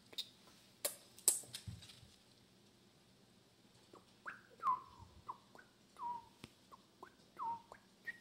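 Dog whining: a series of short, high, falling whimpers in the second half, from a dog eager to go out. A few sharp clicks come in the first second and a half, the loudest about a second in.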